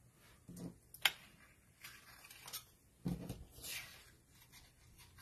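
Paper craft pieces handled on a cutting mat: a few scattered taps, clicks and paper rustles, with a sharp click about a second in and a duller knock about three seconds in.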